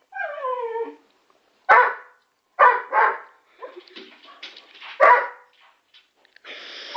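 Working springer spaniel excitedly barking at a pigeon outside the window: a high whine falling in pitch, then four sharp barks, the last about five seconds in.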